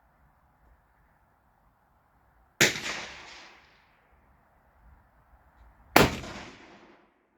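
Two rifle shots about three and a half seconds apart, each a sharp crack followed by a fading echo lasting about a second. The second shot is slightly louder.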